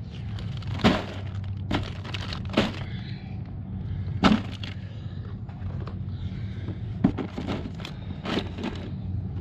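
Plastic water bottle and food packages knocking and crinkling as they are packed into a plastic cooler: a series of sharp clicks and crackles, the loudest about a second and about four seconds in, over a steady low hum.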